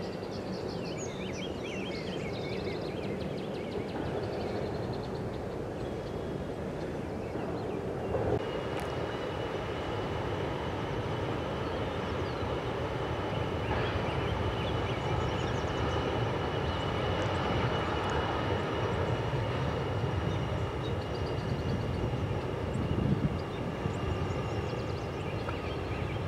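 Jet airliner engines running steadily: a low rumble, joined about eight seconds in by a high, steady whine that holds.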